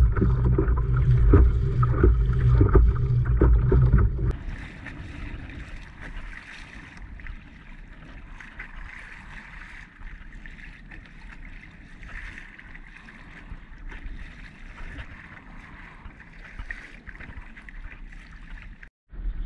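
Wind buffeting a kayak-mounted camera's microphone as a loud, fluttering low rumble. About four seconds in it drops to a quieter, steady rush of wind and small waves slapping around the kayak, with a brief cut-out near the end.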